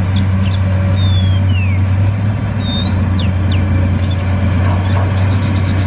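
Komatsu PC200 hydraulic excavator's diesel engine running with a steady low hum as it digs. A few birds chirp over it.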